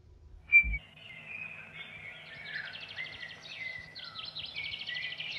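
A short thump about half a second in, then several songbirds singing: a steady run of high chirps, quick trills and gliding whistles.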